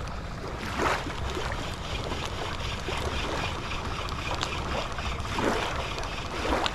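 Wind buffeting the microphone over water lapping at the shore, with three brief louder bursts: one about a second in and two near the end.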